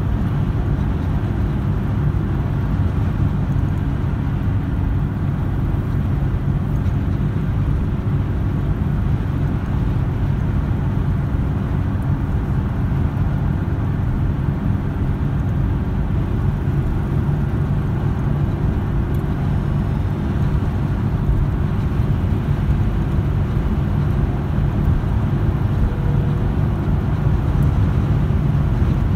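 Jaguar XJS cruising at steady highway speed, heard from inside the cabin: an even, low drone of engine and road noise that holds steady throughout.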